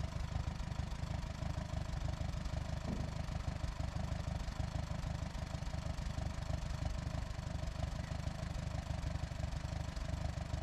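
Sawmill's engine running steadily.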